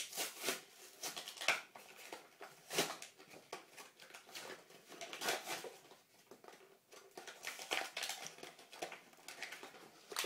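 Plastic toy packaging crinkling and rustling as it is opened by hand, with irregular crackles and light taps.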